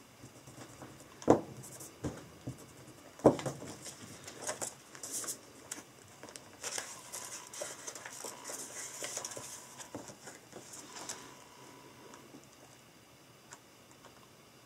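Paper handling at a desk: the pages of a study book being turned and a plastic red memorization sheet being moved over them. Two sharp taps come about one and three seconds in, followed by several seconds of paper rustling that dies down near the end.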